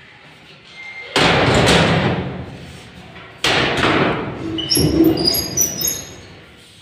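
Sheet-metal door in a steel frame banging twice, about a second in and again a couple of seconds later, each bang rattling on for a second or so. Short high squeaks follow near the end.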